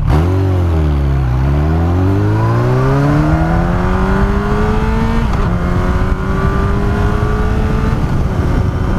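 Yamaha R1 inline-four sport-bike engine, restricted to 48 PS, accelerating away: the engine note dips, then climbs steadily, drops slightly about five seconds in as it shifts up a gear, and climbs again before fading out near the end.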